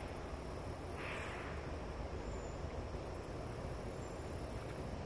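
Quiet outdoor background on an idle bass boat: a steady low hiss, with a faint soft swish about a second in.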